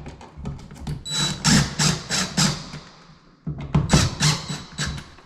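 Hands working with tools and electrical parts at the outlet: a run of clicks, knocks and scraping, with a brief high squeal just after a second in.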